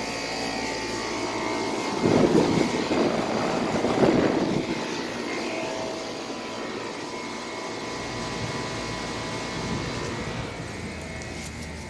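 Carrier WeatherMaker TECH2000 air conditioner's outdoor unit running, its condenser fan and compressor making a steady whooshing drone with a hum. The noise rises for a few seconds from about two seconds in.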